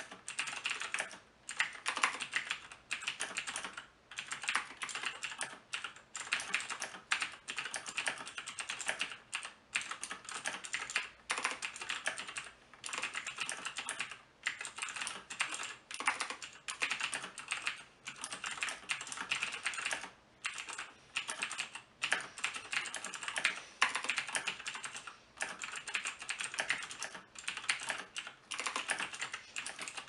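Continuous fast typing on a Razer BlackWidow Ultimate (2014) mechanical keyboard: dense runs of key clicks and clacks, broken by brief pauses every second or two.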